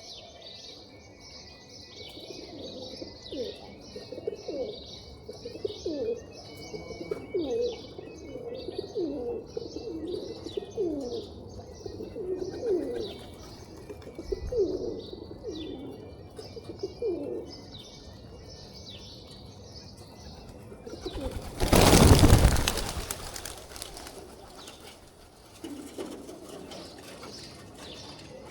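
Pigeons cooing, with many short falling coos over a steady chatter of small birds chirping. About two-thirds of the way through comes a loud flurry of flapping wings lasting about two seconds.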